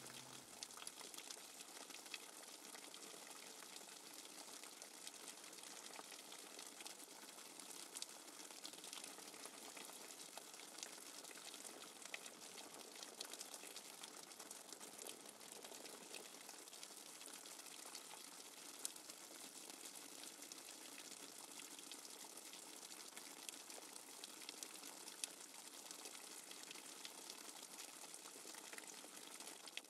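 Faint patter of falling water drops after a tropical shower: a steady soft hiss with scattered small ticks.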